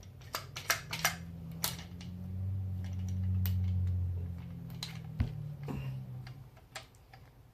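Small metal clicks and taps as the bolt is worked and coaxed out of a T15 paintball marker's upper receiver, with a low steady hum through the middle that fades out before the end.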